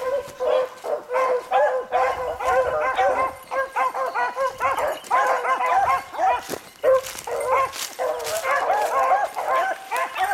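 A pack of beagles baying while running a rabbit's scent trail, several hounds giving voice at once in a continuous, overlapping chorus.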